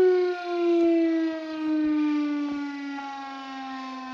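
Federal Signal siren on a fire hall tower winding down at the end of its noon sounding. Its pitch slides slowly lower and it fades.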